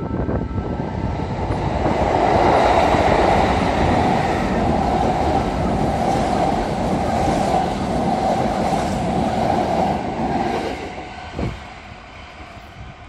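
Electric commuter train passing close on the adjacent track: steady wheel and running noise with a constant hum that builds over the first two seconds, holds, and fades away after about ten seconds.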